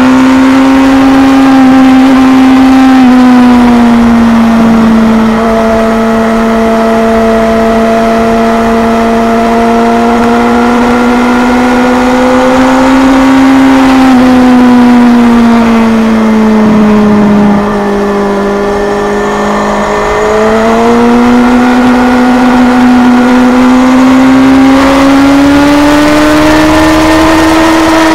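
Kawasaki Z1000's inline-four engine running hard at high revs on track, its pitch rising and falling smoothly with the throttle through the corners, with wind rush underneath. About two-thirds of the way through the revs sag and the sound eases as the throttle comes off, then climbs again.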